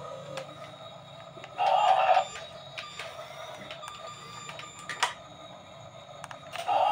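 Small electric gear motors of toy remote-control excavators whirring as the booms and buckets move. Loud bursts come about one and a half seconds in and again near the end, with faint ticking and a sharp click between them.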